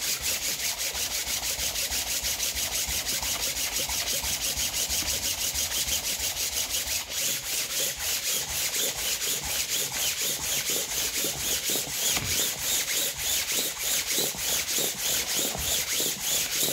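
Sandpaper on a flat block rubbed by hand over the cylinder head's intake-manifold mounting face, in quick, even back-and-forth strokes. This is the truing of the mating surface before a new gasket goes on.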